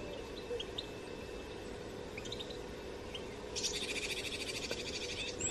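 Small songbirds calling with scattered short high chirps. About two-thirds in, a fast, even trill of roughly ten notes a second runs for nearly two seconds and is the loudest sound. A steady low hum sits underneath throughout.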